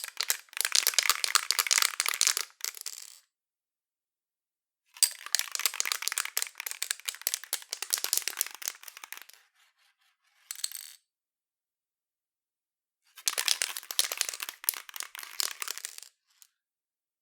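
Aerosol spray paint can being shaken, the mixing ball inside rattling rapidly against the metal can. There are three bouts of shaking a few seconds long, with a brief shake between the second and third, each separated by silence.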